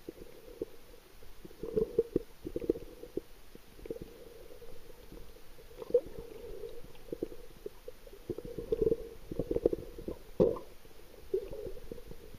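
Muffled underwater sound picked up by a submerged camera in its waterproof housing: a low murmur of water with irregular knocks and clicks, in louder clusters about two seconds in, around nine to ten seconds and near the end.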